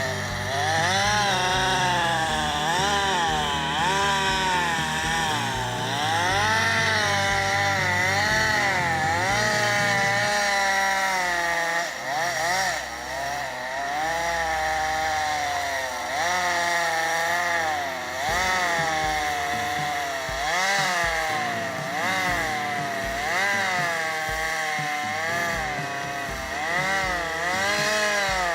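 Chainsaw running under load while cutting through a tree trunk. Its engine pitch keeps rising and falling as the cut goes, with brief drops in speed a few times.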